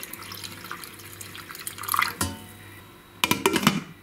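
Hot water pouring from a saucepan into a stainless steel pot around sealed glass jars, filling a water bath to sterilize them; the pour runs off after about two seconds. A sharp clink follows, then a glass pot lid clatters onto the pot near the end.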